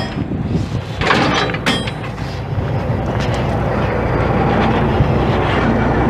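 Caterpillar C15 six-cylinder diesel engine of a Kenworth W900 semi truck idling, a steady low rumble, with a few sharp knocks in the first two seconds. A steady low hum joins in past the midpoint.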